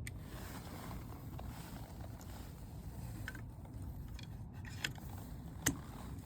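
Reolink video doorbell being handled against its mounting bracket: a few light plastic clicks, the sharpest about two-thirds of the way in, as it fails to seat on the mount. A steady low rumble underneath.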